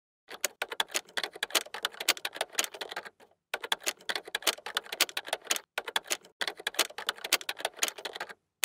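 Typing sound effect: rapid key clicks in three runs of about two to three seconds each, with short pauses between.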